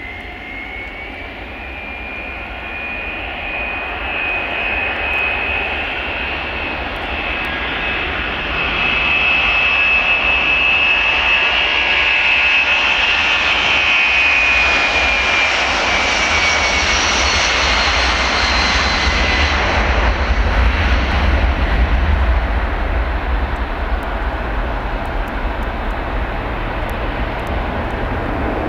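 Boeing 757-230 twin-engine jet airliner at full takeoff power, rolling down the runway and lifting off. A high engine whine rises in pitch and loudness as it approaches, then drops in pitch as it passes. A deep rumble follows, strongest after it has gone by, as it climbs away.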